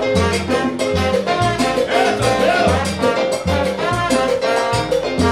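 Live salsa band playing: trombone, electric keyboard, timbales with cymbal, güiro and congas over a steady beat with low notes about twice a second.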